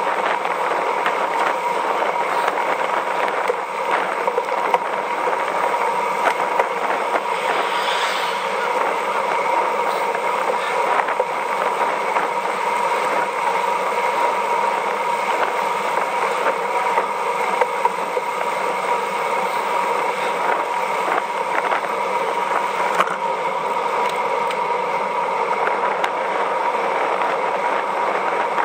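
Steady rushing noise of a road bicycle ridden at speed: wind over the bike-mounted microphone and tyres running on asphalt, with a steady thin whine underneath.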